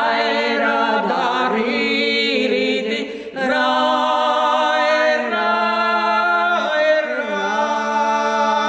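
Two women singing together unaccompanied, in long held notes, with a short break between phrases about three seconds in.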